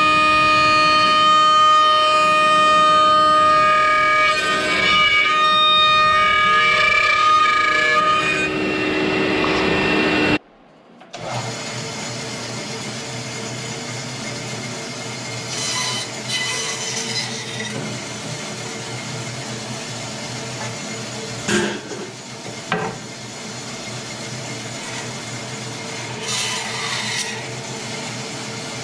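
For the first ten seconds, music plays over a CNC router cutting wood. After a sudden cut, a Grizzly bandsaw runs with a steady hum, and its blade cuts through thick wood in a few short louder spells.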